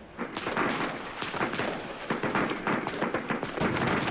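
Heavy gunfire: a dense, rapid run of shots, many overlapping, starting suddenly just after the start and keeping up throughout.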